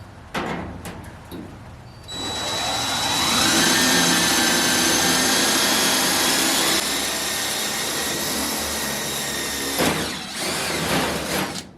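Electric drill with a 1/8-inch bit spinning up about two seconds in and running steadily for around eight seconds before stopping, drilling holes through 18-gauge sheet steel for Cleco fasteners. A few small clicks of handling come before and after.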